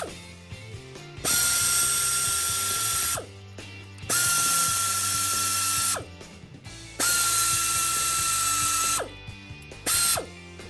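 Power ratchet spinning a water pump pulley bolt in four runs, the first three about two seconds each and the last a short blip near the end, each with a steady whine over a hiss.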